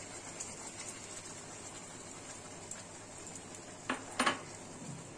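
Wet ground spice paste frying gently in a little oil in a non-stick kadai, a faint steady sizzle. Two short knocks come close together about four seconds in.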